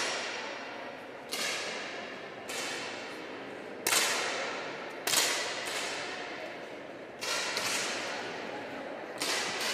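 10 m air pistols firing during a shooting final: about six sharp shots at uneven intervals from different shooters. Each shot rings on briefly in the hall's echo.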